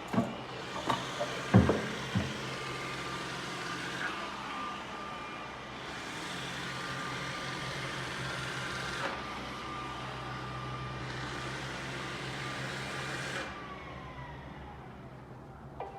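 iRobot Roomba s9+ robot vacuum running, with a steady whir from its motor and brushes. There are several sharp knocks in the first two or three seconds, and the whir drops off and turns quieter about three seconds before the end.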